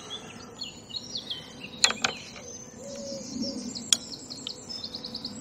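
Songbirds chirping and trilling in a dawn chorus, with a fast run of repeated notes near the end, and a few sharp clicks.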